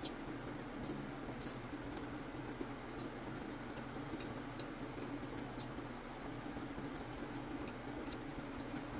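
Eating sounds of pad thai noodles taken with wooden chopsticks from a paper takeout box: soft chewing and scattered small clicks, one sharper click a bit past halfway, over a steady low background hum.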